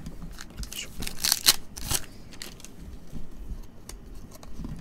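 A stack of glossy baseball trading cards being shuffled through by hand, the cards sliding and snapping against each other in short irregular flicks. The louder flicks come between one and two seconds in.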